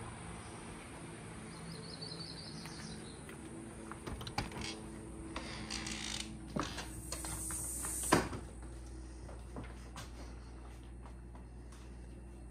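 An entry door being opened and passed through: latch clicks and creaks, ending in a sharp knock about eight seconds in.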